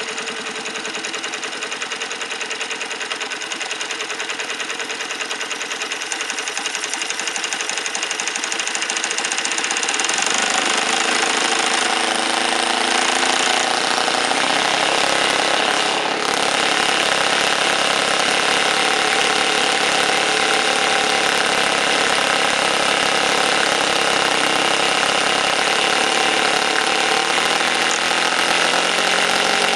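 Home-built water-cooled twin-cylinder four-stroke model engine, made from two Saito 91s, running steadily just after starting. About ten seconds in it gets louder and fuller.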